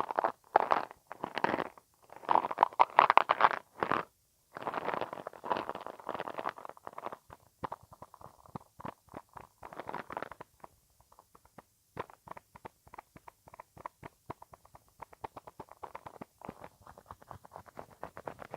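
ASMR mouth sounds: wet clicks and smacks in quick runs, dense in the first several seconds, then thinning to sparser single clicks.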